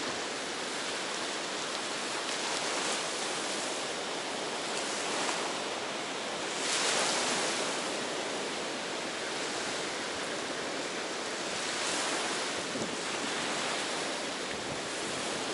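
Ocean surf washing onto a beach: a steady rush of waves that swells louder every few seconds, most strongly about halfway through.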